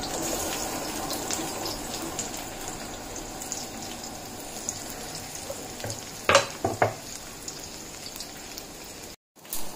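Sliced onions sizzling in hot oil in an iron wok as they go in, a steady frying hiss. Two sharp knocks come about two-thirds of the way through, and the sound cuts out briefly near the end.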